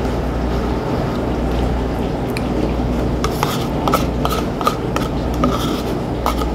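Light clinks and scraping of cutlery against a dish, scattered small clicks over a steady low hum.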